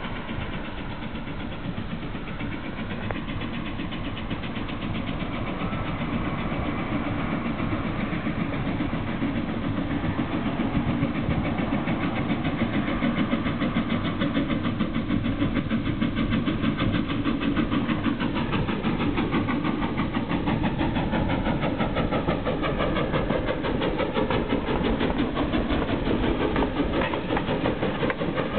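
Quincy Railroad #2 steam tank locomotive running slowly toward and past with its train, a steady rapid pulsing mechanical sound that grows louder over the first ten seconds as it nears, then holds.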